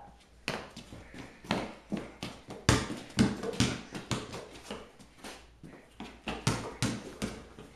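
Basketball bouncing on a hard floor in a small room: a run of irregular thuds and knocks, roughly two a second.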